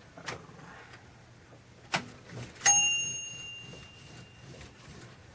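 Royal manual typewriter's bell dinging once, a bright ring that fades over about a second, the warning that the carriage is near the end of the line. A sharp clack of the typewriter's mechanism comes a moment before it, with a few light clicks around it.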